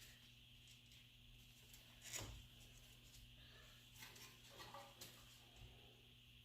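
Near silence with faint room tone and a few soft clicks and knocks, the loudest about two seconds in.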